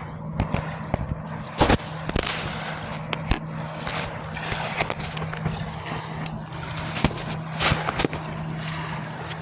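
Handling noise on a phone's microphone as the phone is repositioned: irregular knocks, taps and scrapes, the loudest about a second and a half in, over a steady low hum.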